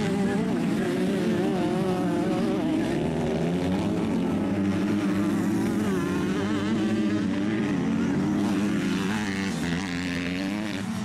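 Several 85cc two-stroke motocross bikes racing, their engines revving up and down as they corner and accelerate, the pitches of the different bikes rising and falling over one another. The sound eases slightly near the end.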